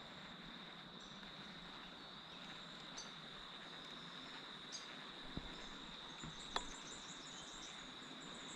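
Faint, steady high-pitched insect drone, a cricket or cicada-like trill held on one note, over quiet outdoor hiss, with a few soft ticks about halfway through.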